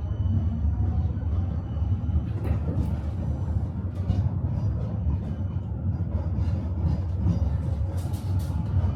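Tram running along its rails, with a steady low rumble from the wheels and running gear. From about two and a half seconds in comes an irregular series of sharp clacks and knocks as the wheels go over rail joints.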